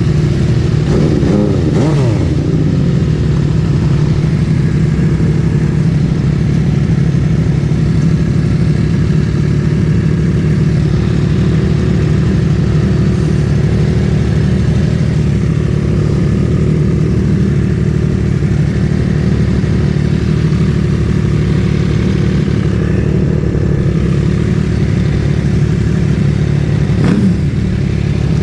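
MV Agusta Dragster 800's three-cylinder engine with a QD Power Gun exhaust running at a steady pitch. The engine note slides in pitch briefly about two seconds in and again near the end.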